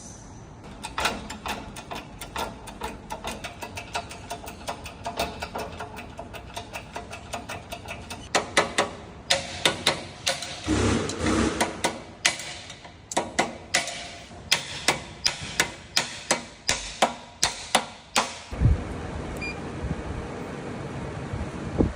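Hammer striking metal over and over while a bearing is replaced: quick light taps at first, then heavier blows about two a second from about eight seconds in. These stop near the end, where a steady low rushing noise takes over.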